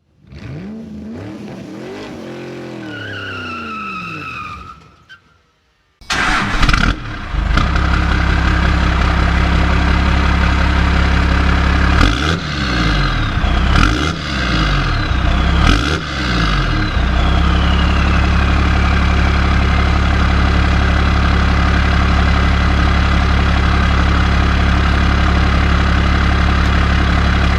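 1996 Dodge Ram 2500's 12-valve Cummins inline-six turbo diesel on its stock exhaust: it begins running about six seconds in, is free-revved three times with a falling turbo whistle after each rev, then settles into a steady idle. The first five seconds hold a separate gliding opening sound.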